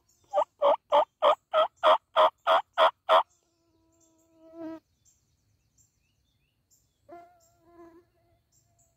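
A run of about ten loud, evenly spaced turkey yelps, roughly three a second, lasting about three seconds. Later come two short, faint buzzes.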